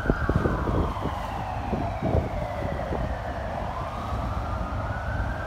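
A siren wailing in one slow cycle: its pitch falls for about three seconds and then rises again near the end. Underneath is a low rumble with irregular thumps.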